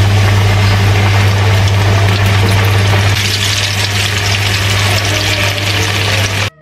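Flour-battered chicken deep-frying in hot oil in a wok: a loud, steady sizzle with a low hum underneath. The sizzle grows stronger about three seconds in, as more coated pieces are dropped into the oil, and cuts off abruptly just before the end.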